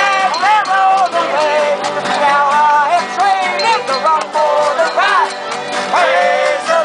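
A live band playing a lively song with a steady beat, its melody sliding between notes.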